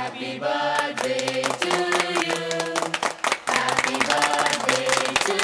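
A group of children and adults singing a birthday song together, with clapping throughout.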